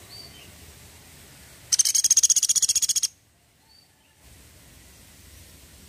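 A pelatuk sampit, a small spotted woodpecker, giving its 'tembakan' call: one rapid, high-pitched rattling trill lasting about a second and a half.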